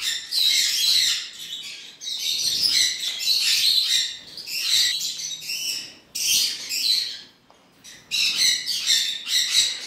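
Green-cheeked conures chattering: a busy run of high-pitched chirps and squawks in spells of a second or two, with a short quiet pause about three-quarters of the way through.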